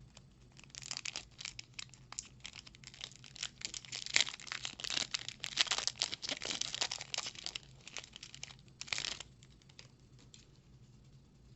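Foil wrapper of a Magic: The Gathering booster pack being torn open and crinkled in the hands. Dense crackling that starts about a second in and ends with a last short burst near the end.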